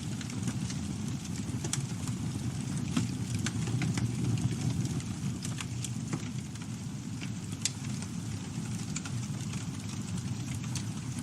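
Campfire burning: a steady low rumble of the flames with irregular sharp crackles and pops of burning wood.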